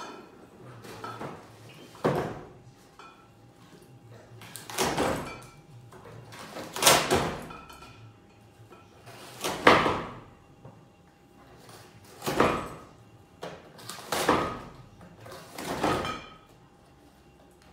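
A caracal tearing a cardboard box apart with its teeth: sharp rips of cardboard, about seven of them, every two or three seconds.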